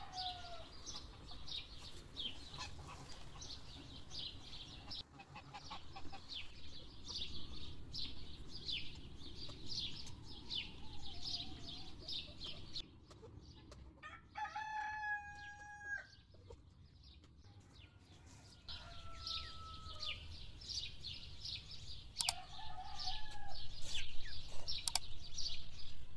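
Small birds chirping in a rapid, continuous twitter, and about halfway through a rooster crows once; a few more short fowl calls follow near the end.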